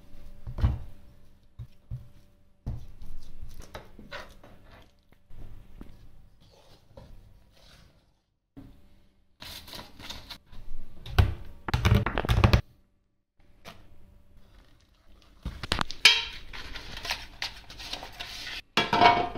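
Kitchen handling sounds: a fork tapping and scraping on a wooden cutting board as bananas are mashed. About halfway through comes the crinkle of foil as a chocolate bar is unwrapped, and near the end a metal loaf tin is handled.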